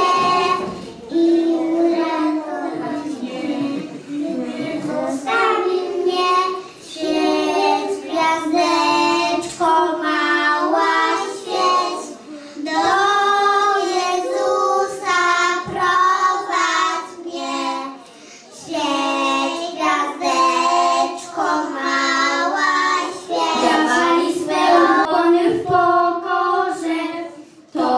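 A group of children singing a Christmas carol together, phrase after phrase with brief pauses between.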